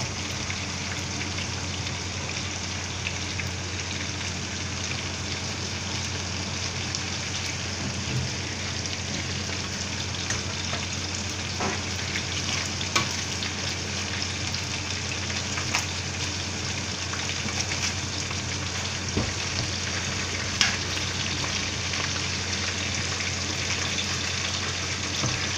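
Chicken wings deep-frying in hot oil in a wok: a steady sizzle of bubbling oil with occasional sharp pops and crackles, the skin frying toward a deep golden crisp.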